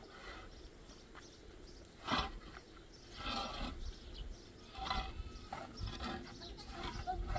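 Animal calls, several in a row, separated by short pauses, with a quick run of short repeated notes starting near the end.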